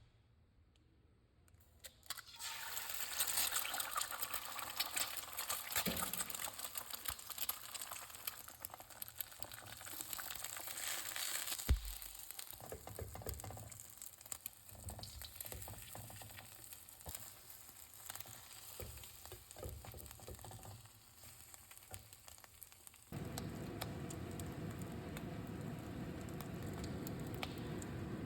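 Food frying and sizzling in a cast iron wok, starting about two seconds in and slowly dying down, with stirring and one sharp knock partway through. Near the end it changes abruptly to a steadier, lower sizzle.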